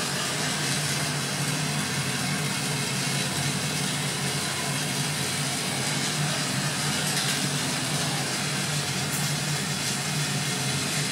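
Glassblowing torch flames hissing steadily as glass tubing is heated on a glass lathe, with a low hum underneath.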